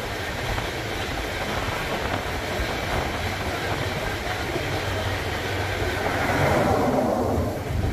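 Passenger train heard from inside a third-class carriage: steady running noise of the train with a low hum, swelling about six seconds in and easing near the end.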